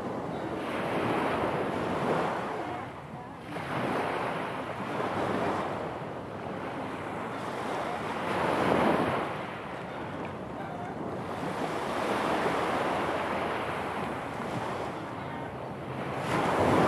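Small waves breaking and washing up onto a pebble beach, the surf swelling and fading every few seconds.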